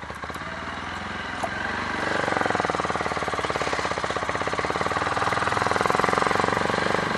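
Motorcycle engine running with a rapid, even pulsing beat. It grows louder over the first two seconds, then holds steady.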